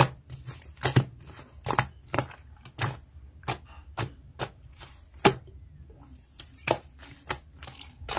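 Hands squeezing and stretching a soft blue slime, which gives irregular sharp clicks and pops as air pockets in it are pressed, about one or two a second.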